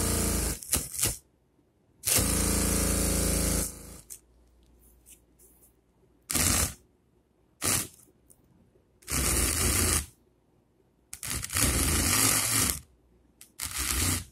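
Small brushed DC motor of a homemade pen-body drill running in about seven short bursts, the longest nearly two seconds, as its wire is touched on and off the battery, the bit boring into thermocol (polystyrene foam).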